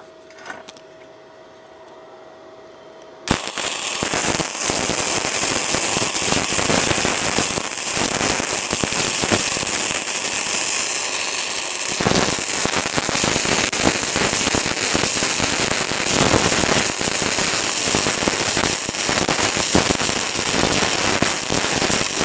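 Gasless flux-core MIG welding arc on 6 mm steel, E71T-GS wire fed from a small NB-200 Tenya inverter welder. The arc strikes about three seconds in and crackles and spatters continuously as the bead is run.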